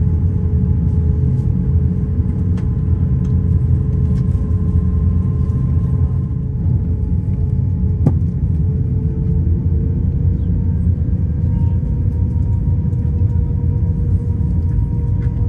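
Cabin noise inside an Airbus A350-900 on the ground: a steady low rumble with a few steady tones from the idling Rolls-Royce Trent XWB engines and air system, as the aircraft begins to taxi. There is a single sharp click about eight seconds in, and the tones shift slightly in pitch soon after.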